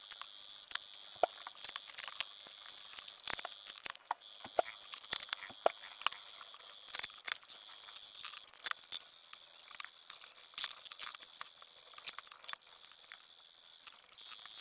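Scattered high, thin clicks, clinks and rattles of tools and small metal and plastic parts being handled and fitted while a Toyota Camry hybrid battery pack is reassembled.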